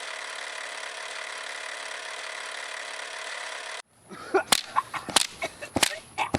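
A steady hiss that cuts off abruptly a little under four seconds in, followed by several sharp clicks and knocks.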